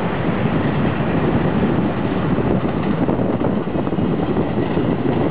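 A TEMU1000 Taroko Express tilting electric train passing on an elevated track: a steady rushing rumble mixed with wind buffeting the microphone.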